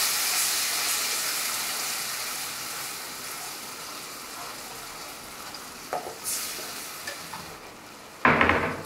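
Tomato sauce with sautéed onion and garlic sizzling in a nonstick frying pan while a spatula stirs it; the sizzle slowly dies down. A sharp knock comes near the end.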